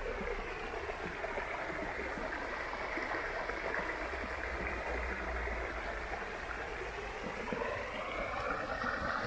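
Shallow river water rushing over stones, a steady rush that grows a little louder near the end.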